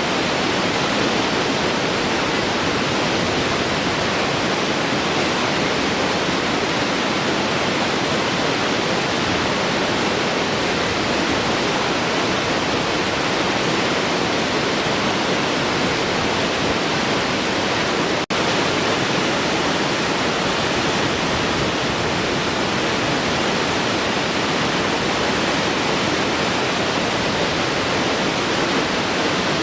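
Large waterfall flowing: a steady, even rush of falling water. The sound cuts out for an instant about two-thirds of the way through.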